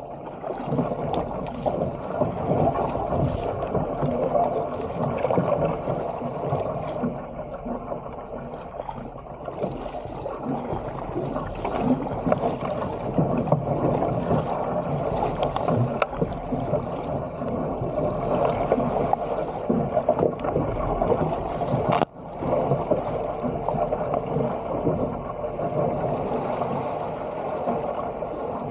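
Water rushing and splashing along a fishing kayak's hull as it is paddled downwind through choppy sea, rising and falling with the waves. A single sharp knock comes about three-quarters of the way through.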